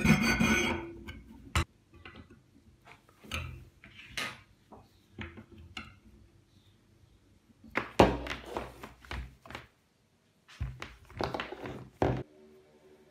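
Scattered knocks, clicks and clunks of workshop handling: cut lengths of threaded steel rod moved about in a bench vise, then a laptop power supply and its cables put down on the table near the end. A sharp click comes about a second and a half in, and the densest run of knocks about eight to nine seconds in.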